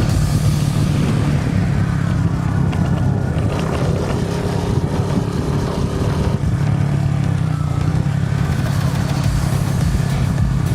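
Suzuki Gixxer SF's single-cylinder engine and exhaust running steadily while the motorcycle is ridden.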